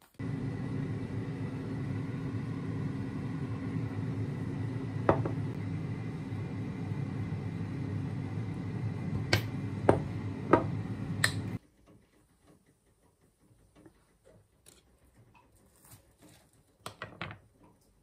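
Steady low hum of a running kitchen appliance, cutting off suddenly a little past the middle. Sharp clicks over the hum come as a flip-top bottle cap is snapped open, followed by faint small clicks and rustles of handling.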